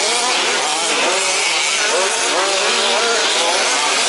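Several 1/5-scale RC race trucks' small two-stroke petrol engines revving up and easing off at once, at different pitches, their rising and falling whines overlapping.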